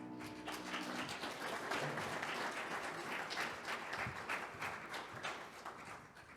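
Congregation applauding with many hands clapping, fading out near the end. The last piano chord dies away underneath during the first second.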